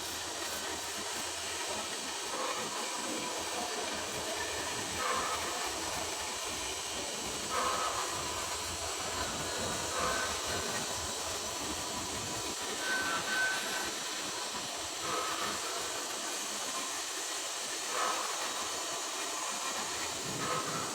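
Steady hiss of arc welding on a carbon steel pipe, with brief louder bumps every two to three seconds.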